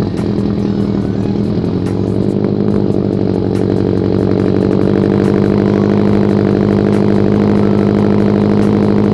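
Subaru WRX's flat-four engine running under way as the car drives. The engine note builds over the first few seconds, then holds a steady, even drone.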